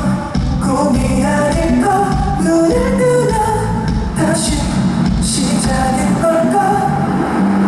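Pop song performed live in a concert hall: singing over instruments and a steady drum beat.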